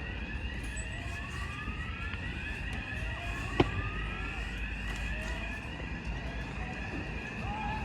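Fire engine sirens sounding, several overlapping rising sweeps repeating over the low rumble of the engines. A single sharp click about three and a half seconds in.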